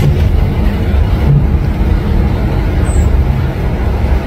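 Loud, steady low rumble of a moving bus heard from inside the passenger cabin: engine and road noise.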